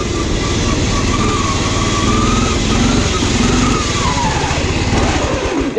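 Riding lawn mower engine running hard, its pitch rising and falling as the throttle and load change, then sagging near the end.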